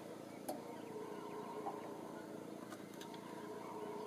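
Howler monkeys roaring, heard faintly as a steady, wavering drone, with a sharp click about half a second in.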